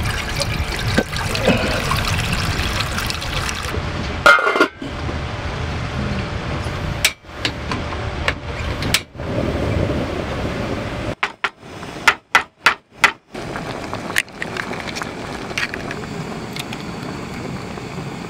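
Water pouring in a steady stream from a collapsible water jug's tap into a metal cooking pan, then short, abruptly cut-off stretches of cooking sounds with several sharp clicks and knocks.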